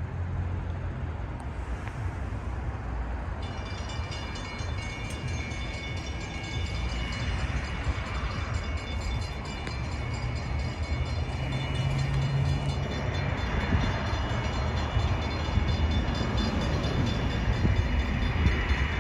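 A railroad crossing bell starts ringing a few seconds in and keeps on steadily over a low rumble. The rumble grows louder toward the end as a train approaches the station.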